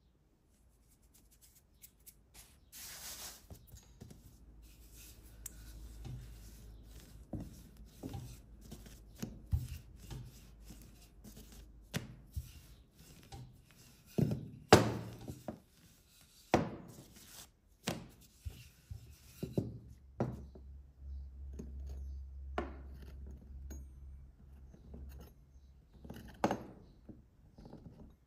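Wooden rolling pin rolling out bun dough on a tabletop, with a run of knocks and taps from the pin and hands and a low rumble of rolling for a few seconds late on.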